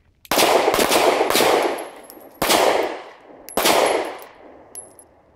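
Pistol gunfire: a rapid string of shots, then two more single shots about a second apart, each ringing off afterwards.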